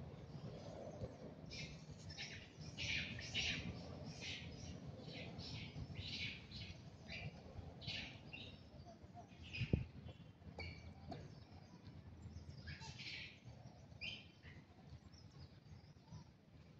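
Wild birds chirping in quick, short, high-pitched calls, repeated many times over a low background rumble, with one sharp click about ten seconds in.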